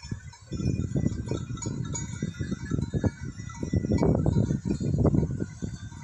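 Flock of sheep and goats bleating, over a loud, uneven low rumble.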